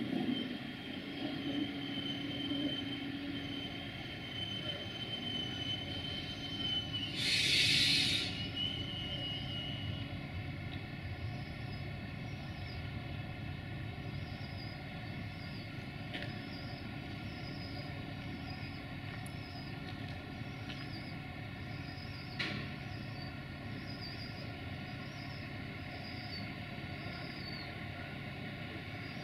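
Duewag BR628 diesel multiple unit rolling slowly into the platform and stopping, its diesel engine running with a steady hum. A thin high squeal from the wheels or brakes lasts for the first ten seconds or so. A short loud hiss of air comes about seven seconds in.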